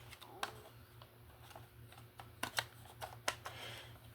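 Irregular light clicks and taps of hard plastic as parts of a Roomba robot vacuum are handled, its filter being pulled out, with a few sharper clicks in the second half.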